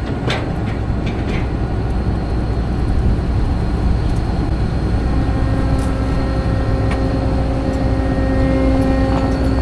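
Engine of farm machinery running steadily with a deep rumble and a few clicks near the start. About halfway in, a steady whine joins it.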